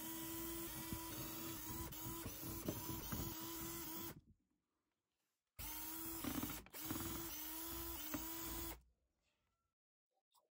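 Cordless Parkside drill/driver running in two bursts, about four seconds and then three seconds, with a steady motor tone that dips slightly under load as it turns the casing screws of a Parkside impact driver.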